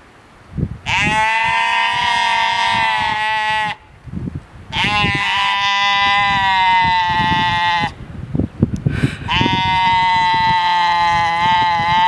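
Young Valais Blacknose sheep bleating: three long, drawn-out bleats, each held steady for about three seconds, with short pauses of about a second between them.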